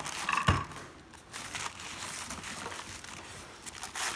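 White packing paper crinkling and rustling as a cut-glass dish is unwrapped by hand, with a short thump about half a second in and a louder burst of crinkling near the end.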